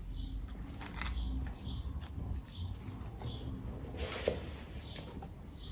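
Handling noise from a flexible plastic-and-rubber mini tripod being bent and turned in the hands: soft rubbing and light clicks, with a brief louder rustle about four seconds in. A faint high chirp repeats every second or so behind it.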